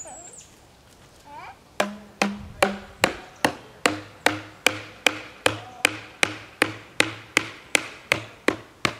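Metal sand-spike rod holder being pounded into the lawn: a steady run of knocks, about two and a half a second, each with a short ring, starting about two seconds in.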